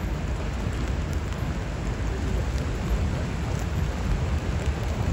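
Train of vintage R33 and R36 Redbird subway cars approaching along an elevated steel track: a steady low rumble with a hiss over it, slowly getting louder.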